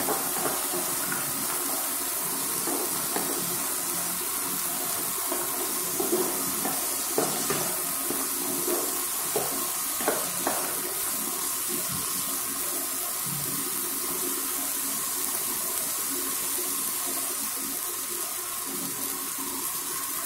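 Chopped onion, tomato, green chilli, garlic and cashews sizzling steadily in hot oil in a non-stick kadai, with scattered scrapes and taps of a spatula stirring them, most of them in the middle of the stretch.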